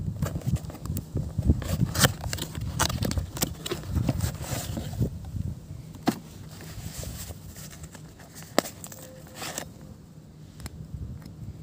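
Cardboard packaging and a nylon carrying case being handled: irregular rustling, scraping and clicks, with one sharp click about three-quarters of the way through as the case's metal snap fastener is pulled open. The handling dies down near the end.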